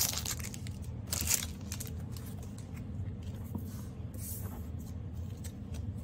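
Crinkling of a torn foil trading-card booster-pack wrapper and cards being handled. It comes in a few short rustling bursts: at the start, about a second in, and again after about four seconds. A low steady hum runs underneath.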